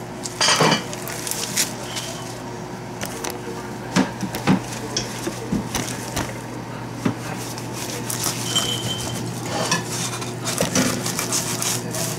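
Kitchen handling noises while a sea bream fillet is wiped and moved: paper towels and newspaper rustling, with scattered knocks and clinks from a knife, cutting board and dishes. The loudest knocks come about half a second in and twice around four seconds in. A steady low hum runs underneath.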